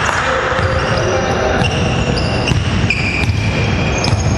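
A basketball being dribbled on a hardwood court, thudding, with basketball sneakers giving several short high squeaks on the wooden floor.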